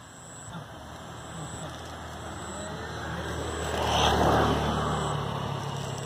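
A motor vehicle passing by off-camera, with a low hum that swells to its loudest about four seconds in and then fades away.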